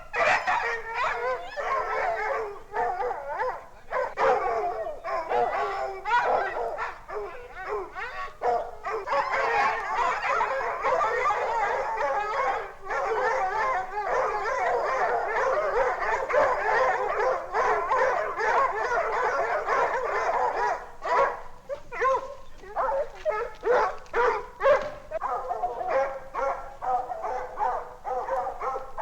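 A pack of bloodhounds barking and baying, many dogs overlapping into a continuous din through the middle, then thinning to separate barks in the last several seconds.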